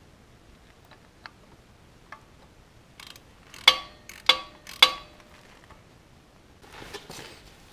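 Three sharp metallic clinks about half a second apart, each ringing briefly, as metal parts or a tool knock against the engine, with a few faint ticks before them and a soft rustle near the end.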